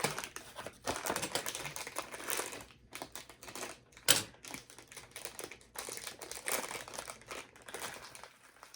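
Plastic candy wrapper crinkling as it is torn open and handled, with a crackle of small clicks and one sharp snap about four seconds in.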